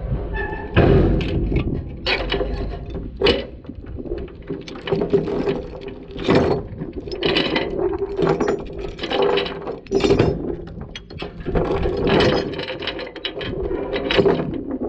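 Chains and binders being unhooked from a skid loader on a trailer: irregular metallic clanks and rattles throughout, over a steady hum.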